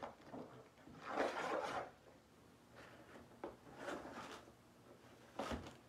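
Craft ribbon rustling and rubbing as it is pulled and handled into a bow, in a few soft swishes, with a short knock near the end.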